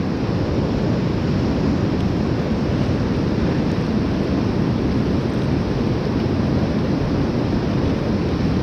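Whitewater rapids rushing, a steady loud noise of churning water heard close up from a kayak in the current.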